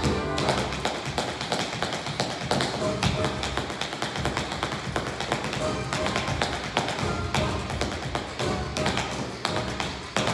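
Tap shoes striking a hard studio floor in quick, rhythmic runs of taps, over recorded music.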